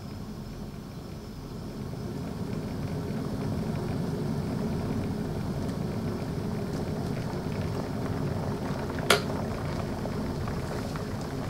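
Tarrington House electric kettle heating up to the boil: a steady rushing, bubbling sound that builds over the first few seconds and then holds. A single sharp click about nine seconds in as the kettle switches itself off at the boil.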